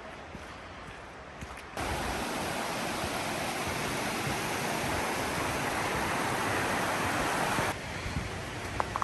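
Rushing water of a mountain creek, a steady even roar that cuts in abruptly about two seconds in and cuts out abruptly near the end, with a fainter outdoor hiss either side.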